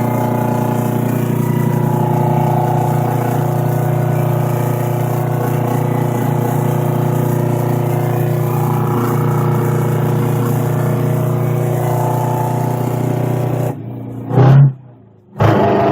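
Straight-piped 8v71 Detroit Diesel two-stroke V8 in a 1980 GMC General semi truck, running steadily through its dual straight pipes. Near the end the sound drops out briefly, with one loud burst in the gap, then comes back loud.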